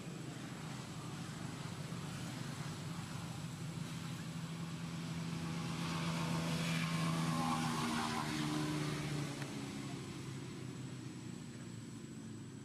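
Motor vehicle engine passing by: a steady low hum that grows louder to a peak about seven seconds in, then fades away.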